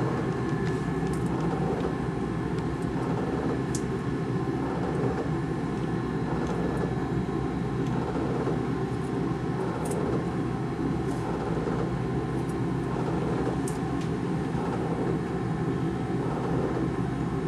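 Steady mechanical rumble and hum of laboratory equipment running, with a faint swell about every one and a half seconds and a few faint high clicks.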